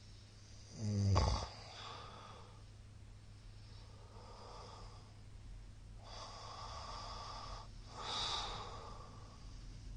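A middle-aged man snoring in his sleep: one loud snorting snore about a second in, then a run of noisy breaths, with a louder breath around eight seconds in.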